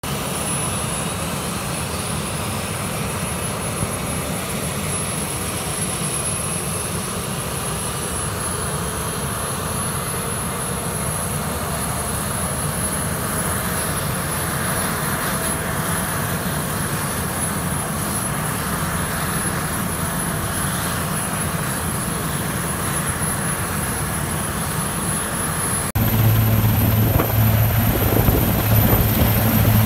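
Sikorsky S-61N helicopter running on the ground: a steady high turbine whine over the noise of its turning rotor. Near the end it becomes louder, with a strong low drone.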